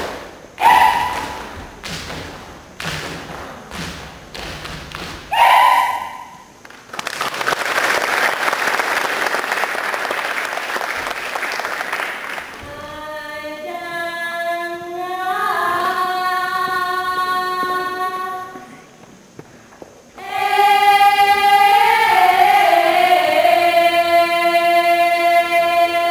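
Saman dance troupe striking a run of rhythmic hand claps and body slaps with short shouted calls, then a few seconds of steady rushing noise. The group then sings an unaccompanied chant in unison, in two long held phrases.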